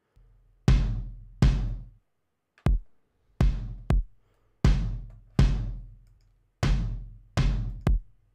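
Two layered kick drum tracks playing back on their own: about ten deep hits with long low tails in an uneven, syncopated pattern, a few of them cut short.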